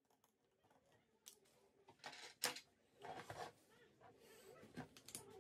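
Faint, scattered clicks and taps of a small screwdriver and plastic RC car parts being handled, the loudest about halfway through.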